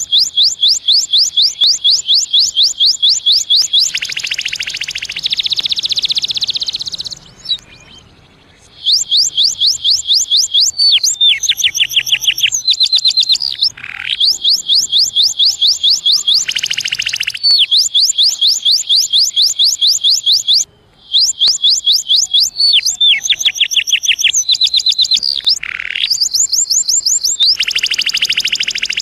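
Domestic canary singing: long runs of quick, high-pitched repeated notes and trills. The song breaks off briefly between phrases, with a gap of about a second roughly a quarter of the way in and a shorter one past the middle.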